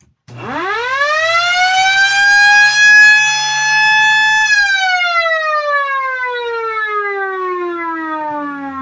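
MS-490 electric motor siren given a short run: it winds up quickly to a steady wail, holds for about two seconds, then winds down slowly in a long falling moan.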